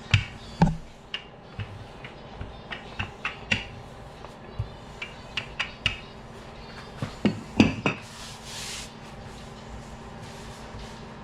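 Irregular clinks and knocks of kitchen utensils against dishes and bowls, a dozen or more scattered through, the loudest cluster about seven to eight seconds in, over a steady low hum.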